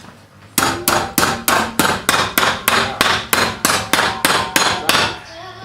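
Hammer striking sheet steel in a steady run of about fifteen blows, roughly three a second, each with a short metallic ring; cold-shaping a body repair panel by hand.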